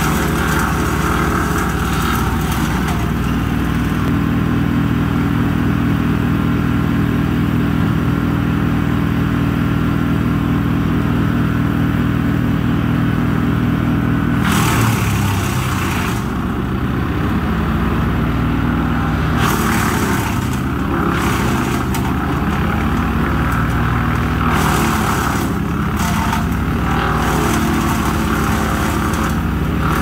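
Engine-driven 6-inch Wallenstein wood chipper running at working speed while leafy brush and branches are fed through it. Steady for the first half; from about halfway the engine note wavers under load, with repeated bursts of noise as branches are chipped.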